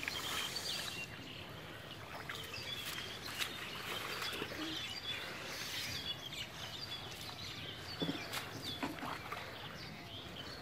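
Small birds chirping again and again over an open-air background, with a few short sharp sounds of water being splashed as a seine net is hauled by hand through shallow water.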